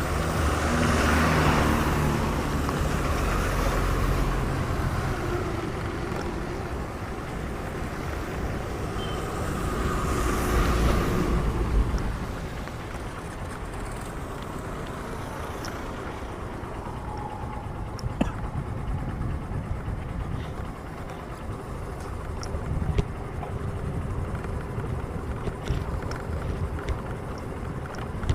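Road traffic: a vehicle with an audible engine passes at the start, another passes around ten seconds in, then a steadier, quieter traffic rumble with a few light clicks.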